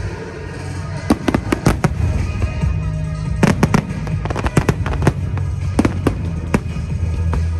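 Fireworks bursting overhead: a run of sharp bangs and crackles, heaviest about a second in and again from about three and a half seconds, over music with a steady low bass.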